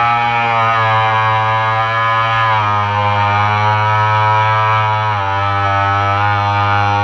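RC model boat's motor running at speed, a steady droning whine picked up by the GoPro mounted on the boat. Its pitch drops slightly twice, about two and a half and five seconds in.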